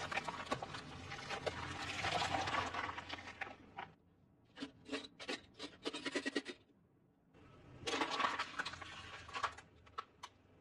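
Crunching and crackling of red onions being crushed under a car tyre for about four seconds. This is followed by a quick run of sharp clicks and crackles, then a second burst of crunching about eight seconds in.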